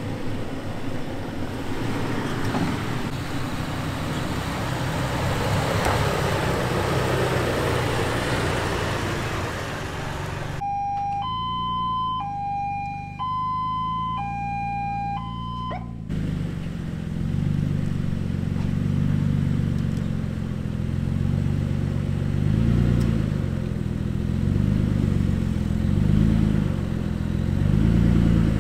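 Off-road trucks' engines running as they crawl up a dirt trail, with rushing noise for the first ten seconds. About ten seconds in, all other sound cuts out for a hi-lo two-tone siren that alternates between two pitches roughly every two-thirds of a second for about five seconds. After it, a low engine rumble that rises and falls returns.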